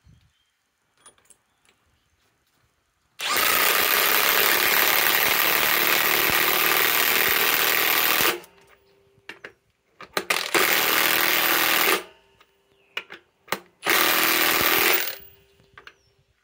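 Ridgid high-torque cordless impact wrench hammering on a 4-inch lag screw in a log. It runs in three bursts: a long one of about five seconds, then two shorter ones of about two seconds and one second, with small clicks between.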